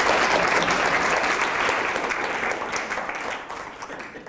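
Audience applauding, the clapping gradually thinning out toward the end.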